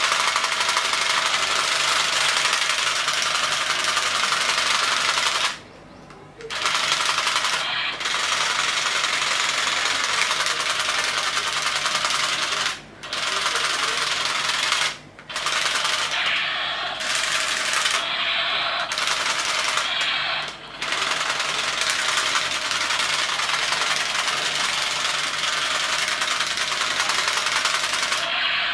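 Battery-powered camouflage toy pistol firing with a loud, fast rattling machine-gun sound, in long bursts broken by several short pauses.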